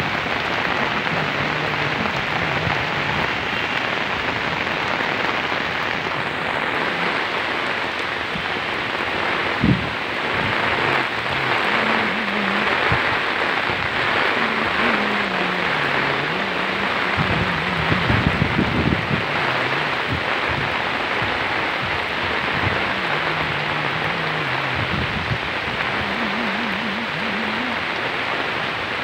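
Heavy rain falling steadily on foliage and surfaces, an even hiss. A few short knocks stand out about ten seconds in and again around eighteen seconds.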